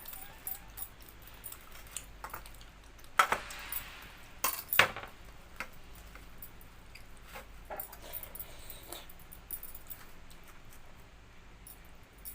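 Scattered clinks and taps of dishes and utensils while eating, with the loudest knocks about three seconds and five seconds in.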